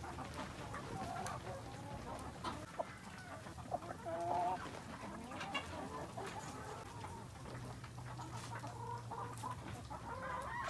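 Laying hens clucking, a scatter of short soft calls. A low steady hum comes in about three-quarters of the way through.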